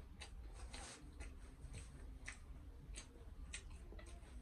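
A mouthful of pork trotter and rice being chewed, heard as faint wet mouth clicks and smacks at an irregular pace, two or three a second.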